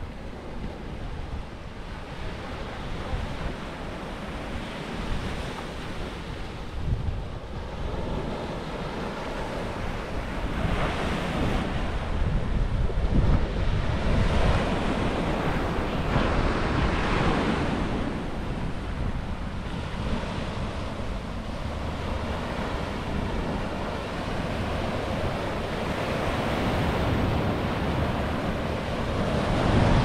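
Surf washing onto a sandy beach, swelling and easing in slow surges, with wind rumbling on the microphone.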